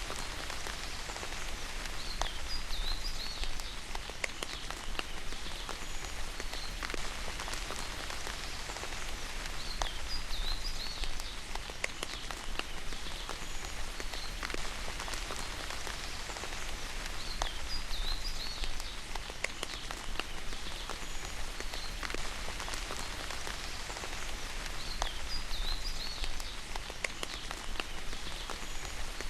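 Steady rain falling, with separate drops tapping close by, and a short high chirping call that comes back about every seven to eight seconds.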